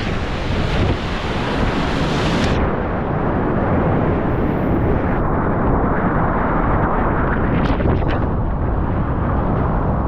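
Loud, steady rush of whitewater rapids and falls, with wind buffeting the microphone. About two and a half seconds in, the high hiss cuts out and the rushing turns duller.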